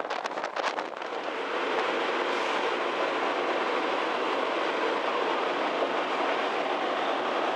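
Steady rushing noise of a ferry under way. Wind buffets the microphone in the first second, then it settles into an even rush.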